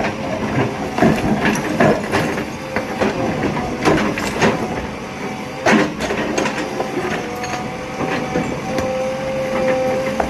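JCB 3DX backhoe loader working: its diesel engine running under load with a steady whine, over irregular sharp clanks and clatters.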